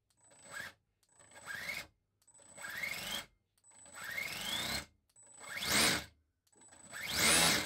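Electric starter motor of a Toyan FS-S100AC small four-stroke nitro engine cranking it in six short bursts, each a whine rising in pitch as it spins up, getting louder towards the end. The engine does not fire, which the owner puts down to a glow plug that does not heat.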